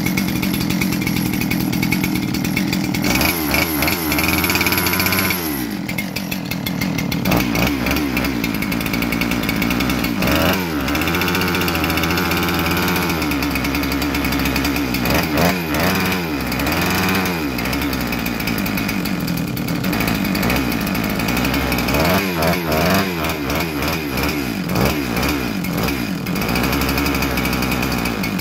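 Big-bore Husqvarna 372XP two-stroke chainsaw engine running with no bar or chain fitted, idling and revved up and back down several times. The freshly reassembled engine is smoking as it burns off the assembly lube in its cylinder.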